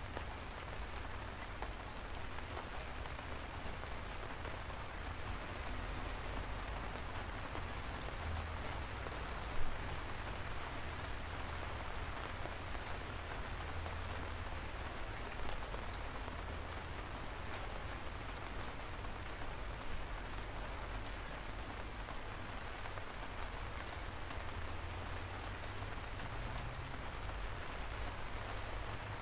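Steady rain falling, a dense even hiss with single drops ticking sharply now and then over a low rumble. One drop about a third of the way in is louder than the rest.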